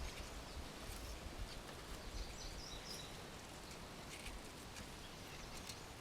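Faint outdoor ambience: a low steady rumble with a few light ticks and a brief faint high bird chirp a little over two seconds in.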